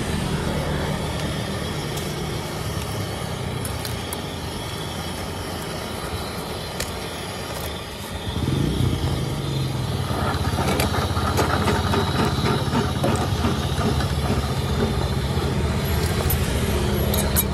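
A road vehicle's engine running, a low rumble that swells about eight seconds in and then holds steady, with a few short clicks near the end.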